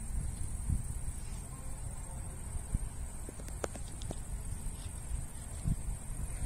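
Steady high-pitched trilling of night insects such as crickets, over a low rumbling noise, with a few faint clicks about three and a half seconds in.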